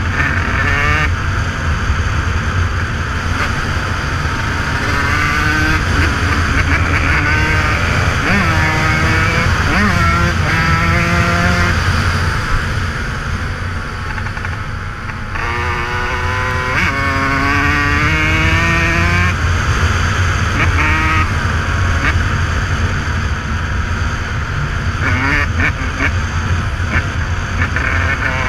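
Dirt bike engine being ridden hard off-road, its pitch rising and falling again and again with the throttle, over a steady low rumble.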